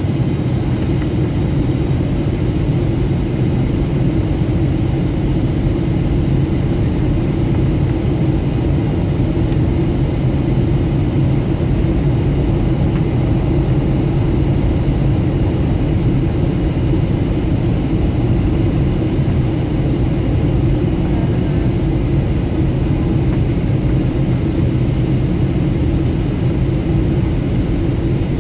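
Steady low drone inside the cabin of a Boeing 737-800 in descent: CFM56-7B engine and airflow noise heard from a window seat by the engine.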